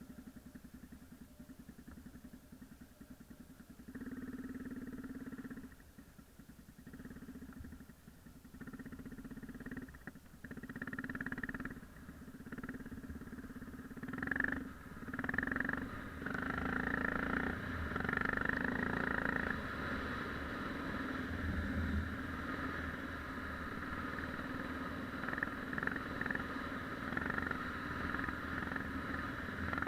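Yamaha XT 600's single-cylinder four-stroke engine running, first at lower revs with the throttle opened and closed several times, then held at steadier, higher revs from about halfway on.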